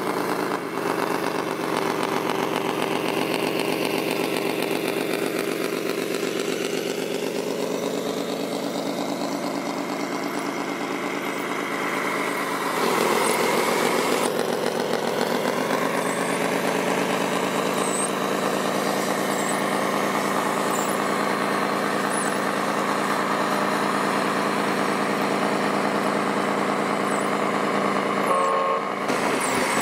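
Radio-controlled scale dump truck running, with a steady diesel-like engine drone made of several pitched layers. The drone shifts in pitch and gets a little louder about 13 seconds in.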